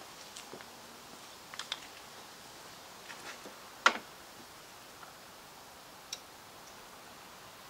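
A few scattered light clicks and taps of someone handling a stopped Lister B stationary engine's fittings, with one sharper knock about four seconds in.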